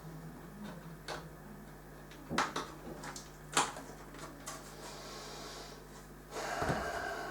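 A few sharp clicks and knocks from hardware being handled, the loudest two about two and a half and three and a half seconds in, over a steady low hum; near the end a second of rustling noise.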